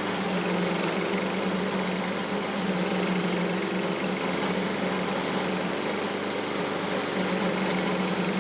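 Small gasoline engine of a bandsaw mill running steadily at high speed.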